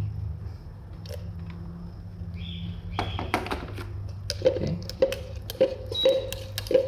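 A spoon stirring a thick mix of pounded toasted bread and hot water in a bowl, clinking against the bowl in a quick run of taps from about three seconds in, over a steady low hum.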